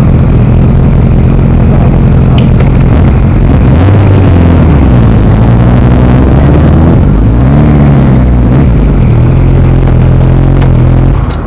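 Motorcycle engine running loud and close. Its pitch rises and falls twice in the middle as the bike rides past, over a steady low engine drone.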